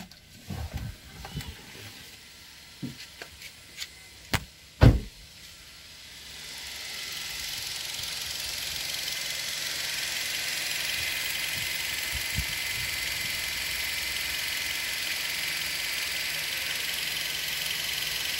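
A few knocks and two sharp thumps in the first five seconds. About six seconds in, a steady whirring hiss of the idling car engine and its cooling fan, heard in the open engine bay, builds over a couple of seconds and then holds steady. The engine is running to bleed air from the freshly refilled cooling system through a funnel on the filler.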